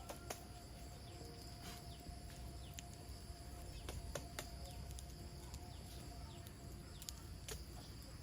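Faint rural ambience: insects droning steadily, with scattered light clicks throughout.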